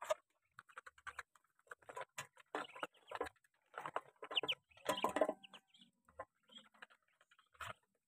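Muscovy ducks feeding: irregular clicking and scraping of bills dabbling in wet mash, busiest in the middle, with a few short bird calls about halfway through.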